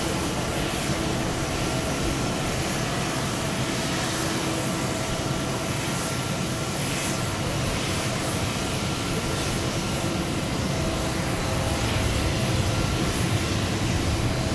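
Jet engines of a twin-engine airliner at takeoff thrust as it lifts off and climbs away: a steady, continuous jet noise with a faint hum in it, growing a little louder near the end.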